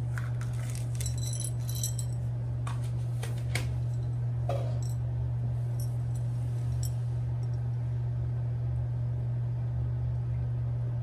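A steady low hum throughout, with light clinks and a short metallic jingle about a second in, then a few faint ticks as a cat eats from a ceramic bowl.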